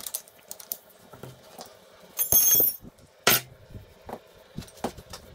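Metal hand tools and fork parts being handled and set down: a loud ringing metallic clink about two seconds in, a sharp knock a second later, and lighter clicks and taps in between.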